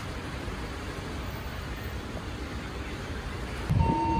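Steady low rumble of street noise and idling vehicles. Near the end it gets louder and a vehicle's reversing beep starts.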